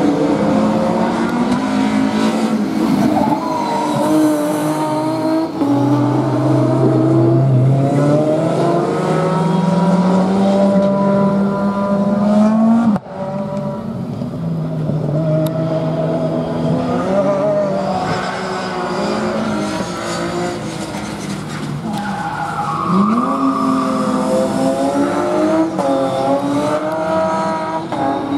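Rallycross cars racing, their engines revving up and down through the gears as they accelerate and slow for corners, with tyre noise on the loose surface. The sound breaks off suddenly about 13 seconds in and carries on a little quieter.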